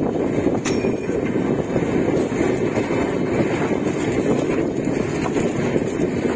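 Passenger train rolling slowly on the track, heard from an open door of one of its coaches: a steady rumble of wheels on rails with wind on the microphone.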